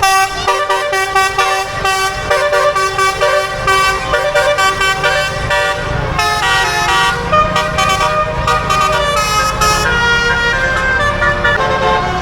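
Bus "telolet" multi-tone musical horn playing a tune of stepped notes, several pitches sounding together, loud and without a break.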